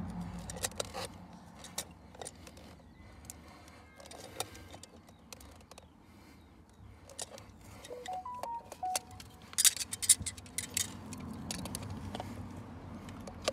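Metal pliers and grips clicking and clinking against a plastic compression fitting on a buried water pipe as it is tightened by hand. The clicks are scattered, with a quick cluster of them about ten seconds in.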